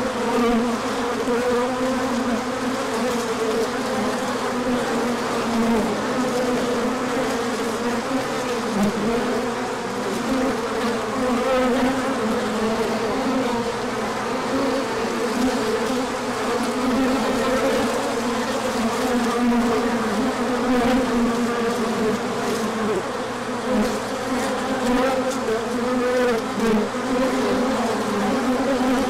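Many honey bees buzzing around a hive: a steady, dense hum that wavers slightly in pitch.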